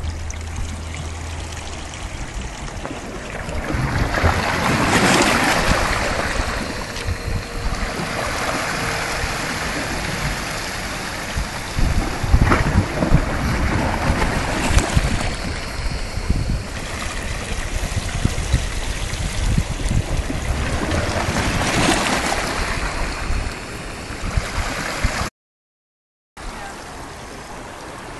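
Sea water surging up into and draining out of a hole in the shoreline lava rock, sloshing and gurgling, with a louder swell every several seconds. Near the end it cuts out for a moment, then comes back as a quieter, steady wash.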